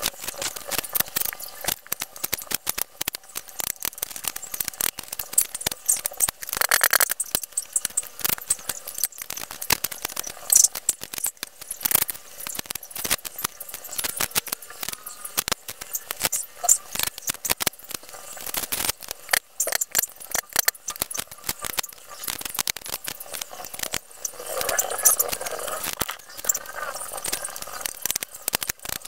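Small kitchen knife clicking and scraping against a wooden chopping board while garlic cloves and shallots are peeled and trimmed by hand: many light, irregular clicks and taps.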